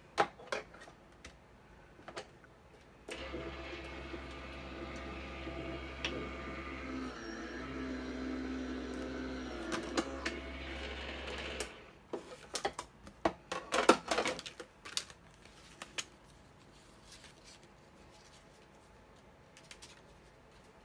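Sizzix die-cutting machine feeding a stack of cutting plates through its rollers, a steady mechanical hum lasting about nine seconds. After it stops come a few seconds of clicking and clattering as the plastic plates and die are handled.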